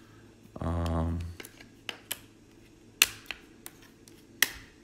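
Sharp metallic clicks of a steel folding knife snapping against and coming off the magnetic base of a Milwaukee ROVER flood light, a handful of them, the loudest about three seconds in and near the end. A short low hum from a person's voice about a second in.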